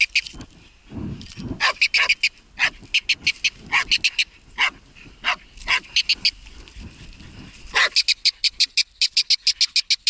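Laika hunting dog barking in quick runs of short, high barks, several barks a second. The longest, fastest run comes near the end.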